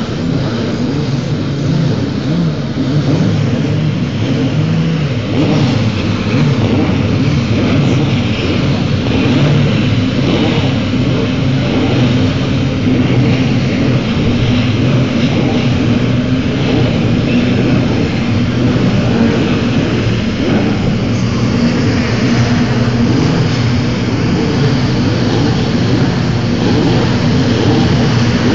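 Engines of a field of open-wheel single-seater race cars running at low revs as they roll into their grid slots, several engine notes overlapping in a steady din.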